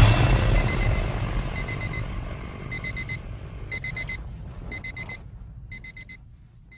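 Alarm clock beeping sound effect: quick clusters of rapid high beeps, about one cluster a second, getting softer toward the end. It starts under the fading tail of a loud rushing sound in the first couple of seconds.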